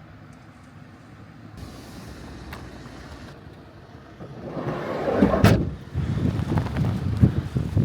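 Storm wind and heavy rain, a low steady rumble that swells into a loud rushing gust about halfway through, with a sharp crack and irregular buffeting thumps of wind on the microphone.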